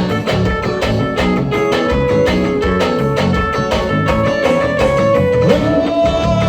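Live forró band playing an instrumental break: a held, sliding lead melody line over a steady, driving beat.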